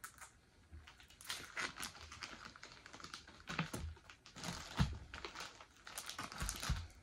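Close-up chewing of a bite of blondie brownie with frosted animal cookies baked in: a run of quick crunchy clicks and mouth smacks.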